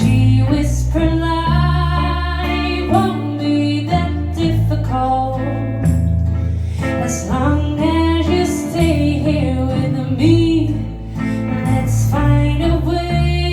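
Live band music: a woman singing over guitar and a strong, steady bass.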